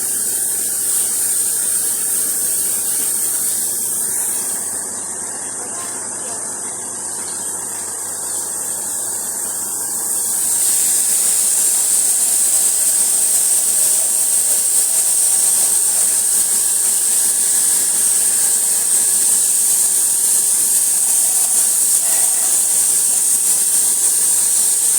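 High-pressure washer jet spraying water with a steady hiss. It turns quieter for several seconds, then comes back louder and steadier about ten seconds in.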